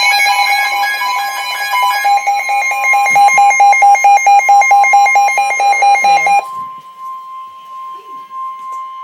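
Emergency Alert System warning tones: a loud electronic alarm pulsing very rapidly for about six seconds, then dropping abruptly to a quieter steady single tone.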